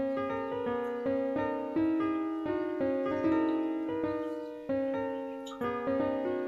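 Background piano music: a slow melody of single notes, each struck and then fading, a new note about every half second.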